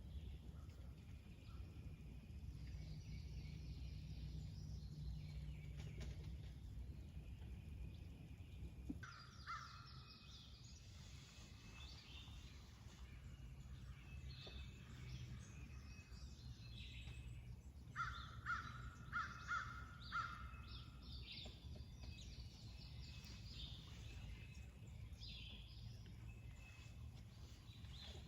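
Wild birds calling: scattered calls, then a run of about five loud calls about two-thirds of the way through, over a low steady rumble.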